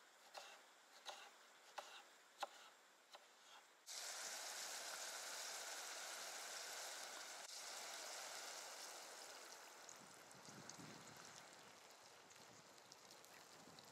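Knife chopping on a wooden cutting board, a stroke every second or so. About four seconds in it switches to a steady sizzling hiss from a hot, steaming pot on a small metal camp stove, which eases off; near the end water is poured into the pot from a plastic bottle.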